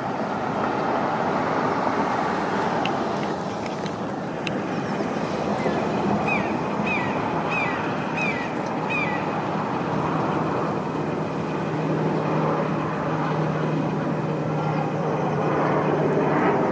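Steady traffic rumble, with a bird calling five times in quick succession, short high notes, about halfway in. A low steady engine hum joins about two-thirds of the way through.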